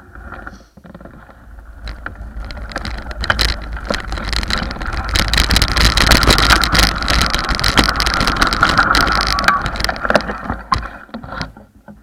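Bicycle riding over a gravel trail: tyres crunching on gravel and the bike rattling with many sharp clicks, under a low rumble of wind on the microphone. It swells to its loudest in the middle and fades as the bike slows to a stop near the end.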